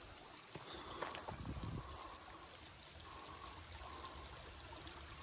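Small creek trickling faintly and steadily, with a sharp crackle about a second in.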